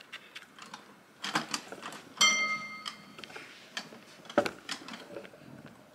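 Toy piano being played by a baby: scattered knocks and clicks of keys and hands, with one note ringing out for about a second, about two seconds in.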